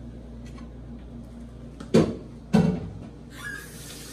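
Two loud knocks from a kitchen cabinet, about half a second apart, as it is banged open and shut. A faint steady hiss starts near the end.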